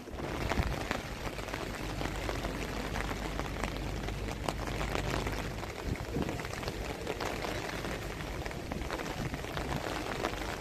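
Rain falling steadily, with many separate drop hits, over a low steady rumble.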